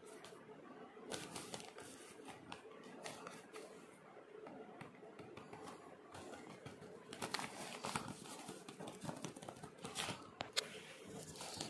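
Folded paper packet crinkling and rustling as fingers handle and unfold it, with sharper crackles about seven to eight seconds in and again around ten seconds.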